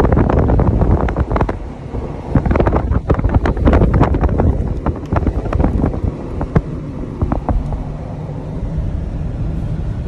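Wind buffeting the microphone from a moving Jeep Wrangler, over a low, steady rumble of the vehicle driving through snow. Irregular gusts and crackles fill most of it, then ease into a steadier rumble near the end.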